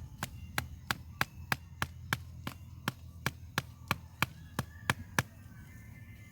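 Rapid, evenly spaced chopping strikes, about three a second, that stop about five seconds in.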